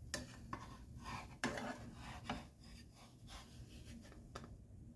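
Spatula scraping and knocking against a nonstick frying pan as a grilled cheese sandwich is slid onto it and flipped over: a series of light knocks and scrapes, the loudest about one and a half seconds in.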